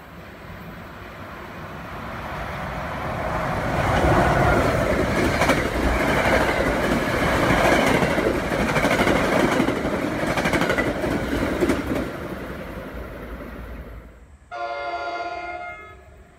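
New Jersey Transit commuter train passing: the rumble builds over a few seconds, runs loud with clickety-clack of wheels over rail joints, then fades away. Near the end a train horn sounds one short blast of about a second and a half, starting abruptly.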